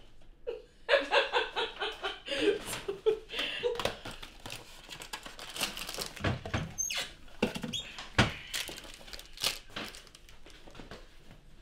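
A person's voice in short, evenly pulsed sounds for about three seconds near the start. This is followed by scattered clicks and knocks of kitchen cabinet doors and packets being handled.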